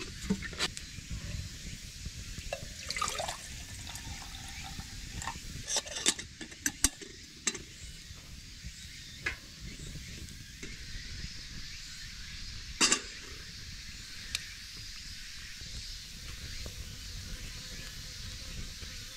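A black metal camping kettle being filled with water and handled: scattered clinks and knocks as the lid goes back on and the wire handle is raised, with one loud metal clank about two-thirds of the way through as the kettle is set on the grill over the fire.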